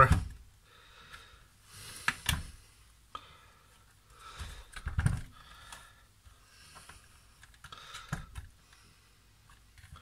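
Hard plastic housing of a Nespresso Inissia coffee machine being pried apart by hand: a handful of sharp, scattered clicks and snaps as its clip-on tabs let go, with plastic handling rustle between.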